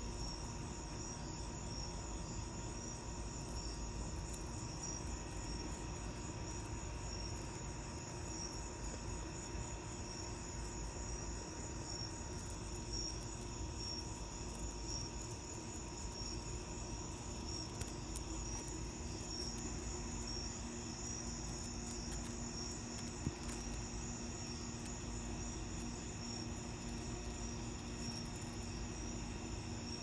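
A steady, high-pitched chorus of night-singing insects, a continuous trill with a regular pulse running through it.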